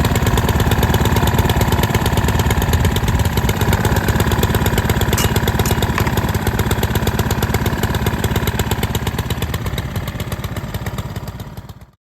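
Husqvarna tiller's small gasoline engine running steadily with rapid, even firing, after its carburetor was cleaned of water and its fouled spark plug cleaned. It fades out near the end.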